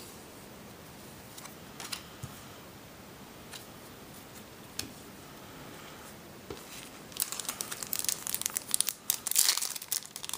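A few faint clicks as trading cards are handled. Then, from about seven seconds in, a Yu-Gi-Oh! foil booster pack is crinkled and torn open, with dense rapid crackling.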